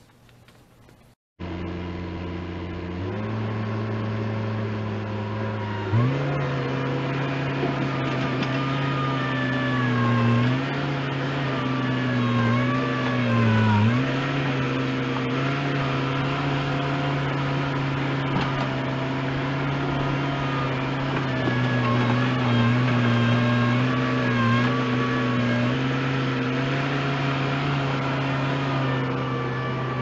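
New Holland LS65 Turbo skid steer's turbo diesel engine running. It starts about a second in, revs up in two steps in the first few seconds, then holds at high throttle, its pitch dipping briefly several times as the bucket digs and pushes dirt under load.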